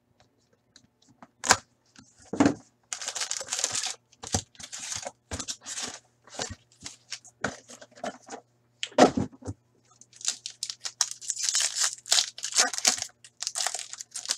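A paper wrapper being torn open and crinkled by hand in several stretches of rustling and ripping. A few sharp knocks come between them, the loudest about nine seconds in.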